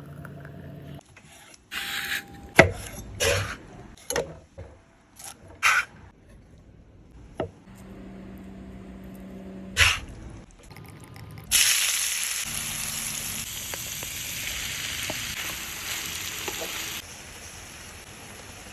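Short knocks and clatter of kitchen utensils, then about eleven seconds in a sudden loud sizzle of food frying in a hot pan, which eases off a few seconds later.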